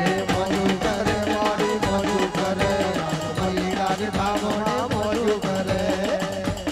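Live Gujarati devotional folk music: a fast, steady hand-drum beat under a melody line.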